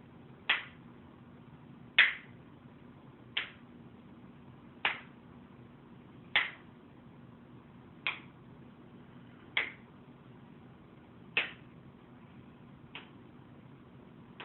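A raw chicken struck repeatedly by hand to record punch sound effects: about ten sharp smacks, roughly one every second and a half, some harder than others.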